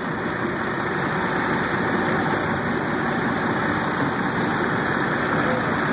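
Fishing boat's engine idling, a steady, unbroken drone.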